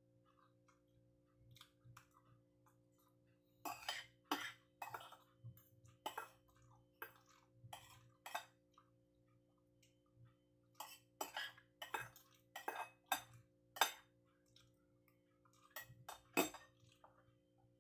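Metal spoon and fork clinking and scraping against a ceramic plate while eating, in irregular clusters of sharp clicks.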